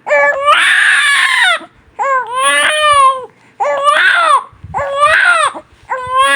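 Newborn baby crying hard: about five loud, high-pitched wails in a row, each about a second long, with short gasps for breath between them. The first wail is the harshest.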